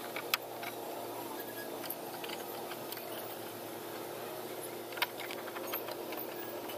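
A few scattered metallic clicks and taps of a 10 mm socket wrench working on the power-window regulator's mounting nuts as they are tightened, the sharpest just after the start and about five seconds in, over a steady faint hum.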